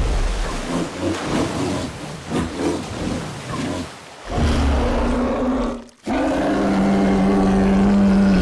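Grizzly bear growling and thrashing in splashing river water, then two long, steady roars near the end, broken by a sudden cut about six seconds in.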